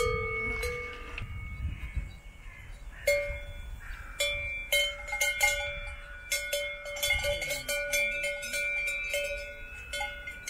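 Cowbells on grazing cows' necks clanking irregularly as the cows move, each strike of the clapper ringing on in several steady tones.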